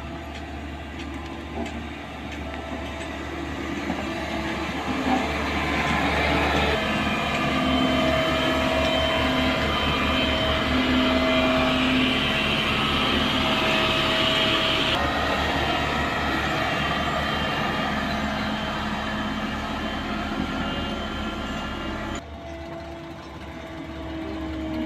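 Heavy construction machinery running steadily, a diesel engine with a whining tone over it; the sound changes abruptly about 22 seconds in.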